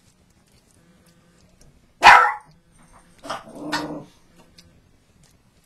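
A dog barks: one loud bark about two seconds in, then two quieter barks a second or so later.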